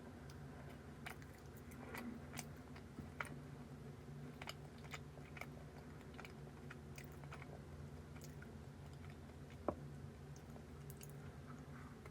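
Close-up chewing and biting while eating a chocolate Ferrero Rocher cookie: faint, scattered crunches and mouth clicks over a steady low room hum.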